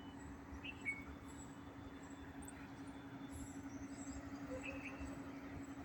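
Faint background noise: a low rumble with a steady hum, and a couple of brief faint high chirps.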